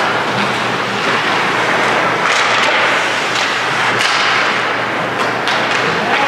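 Ice hockey play in an arena: a steady din of skates scraping the ice, with several sharp clacks of sticks and puck.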